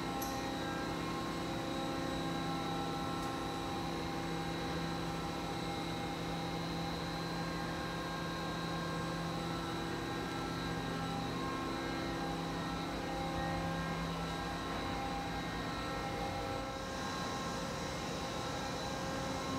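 Steady machine hum with several fixed tones from a powered-up Ikegai TU-30LL CNC lathe standing idle. Near the end the tones shift and a faint hiss comes in.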